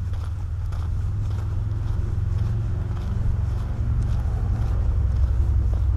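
Footsteps on a dirt trail, faint irregular ticks over a steady low rumble that is the loudest sound.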